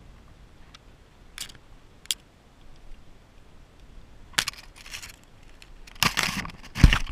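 Close handling noise from an angler working a caught fish and fishing line: a few light clicks, then rustling and scraping from about four seconds in, and a heavy thump near the end.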